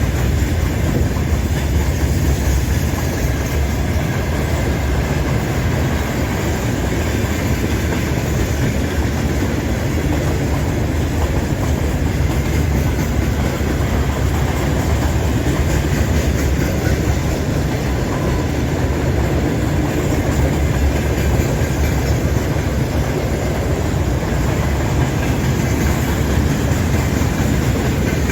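Mixed freight train behind a 3ES5K electric locomotive rolling past: a steady, loud rumble of steel wheels on rail with the clickety-clack of the wagons' wheels.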